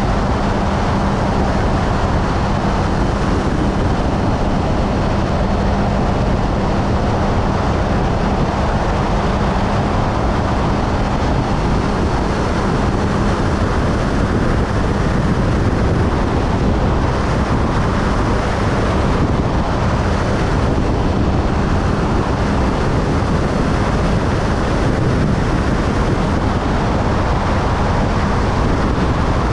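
Motorcycle cruising at steady highway speed: a constant rush of wind on the microphone and road noise, with the engine's low steady hum underneath, clearest in the first dozen seconds.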